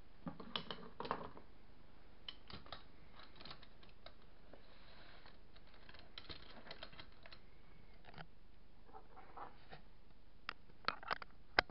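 Metal hand tools clinking and clattering as they are packed into a soft fabric tool bag, with light rustling of the bag. Scattered light clicks, with a run of sharper clicks near the end.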